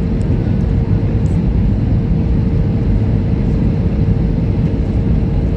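Jet airliner cabin noise on final approach: a loud, steady rumble of engines and rushing air, with a constant low hum beneath it.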